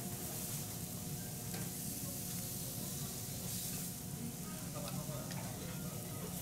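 Food sizzling on a hot teppanyaki iron griddle, a steady frying hiss with a few light clicks.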